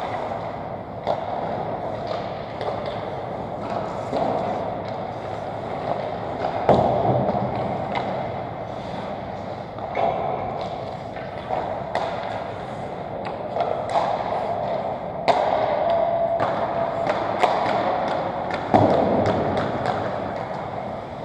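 Ice hockey skates scraping and carving on rink ice, with frequent sharp clacks of pucks and sticks. A few louder scrapes and thuds stand out, one about a third of the way in and two more near the end.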